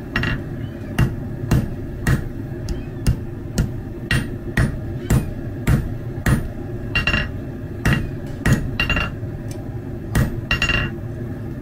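Hand hammer striking a hot steel bar on a steel anvil, forging the curled handle eye of a hot punch: a steady run of blows about two a second, some of them ringing out with a high, bright anvil ring.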